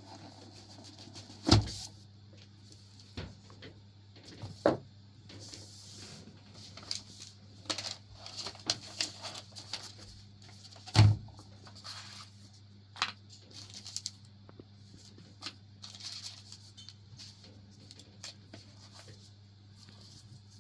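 Lofree Flow 2 mechanical keyboard with Silver Surfer switches: irregular, sparse key clacks and taps, with two much louder knocks, one about a second and a half in and one about eleven seconds in.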